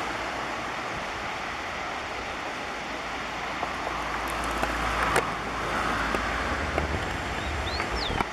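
Steady rush of flowing water, with wind rumbling on the microphone. Near the end come a few short, high sliding notes from a rufous-collared sparrow (tico-tico).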